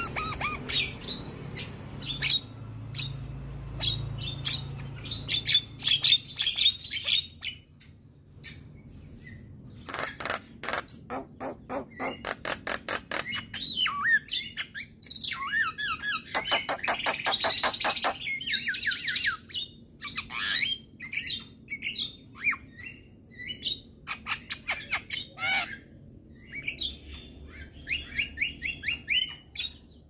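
Male Javan myna (jalak kebo) singing: a varied jumble of harsh squawks, clicks and whistled notes, with a long run of rapid clicking notes through the middle.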